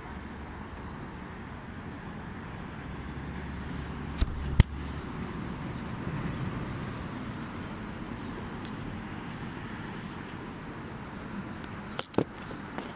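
Steady road-traffic noise, with a low hum that fades out about five seconds in. Two sharp knocks come about half a second apart just after four seconds, and a few sharp clicks come near the end.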